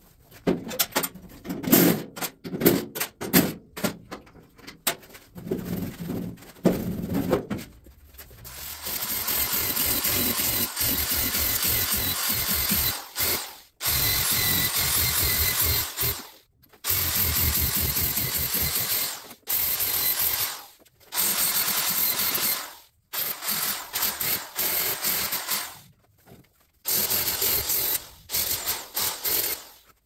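Small right-angle grinder with a small sanding disc running in repeated bursts of two to three seconds on the sheet steel of a truck door. Before it, for the first several seconds, scattered clanks and knocks of metal being handled.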